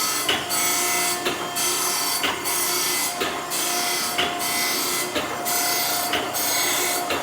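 Okamoto ACC-124N hydraulic surface grinder's 12-inch wheel grinding a steel workpiece dry, without coolant, on incremental downfeed of about a thousandth per pass: a steady hissing, rasping grind over a constant machine whine, broken by a short dip about once a second as the reciprocating table carries the work back and forth.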